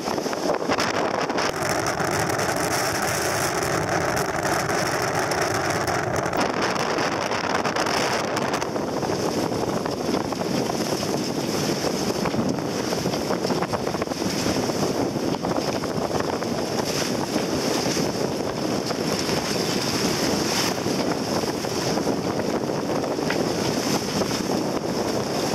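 Strong wind buffeting the microphone over rushing, splashing water on a rough sea. A steady hum joins in about a second and a half in and stops after a few seconds.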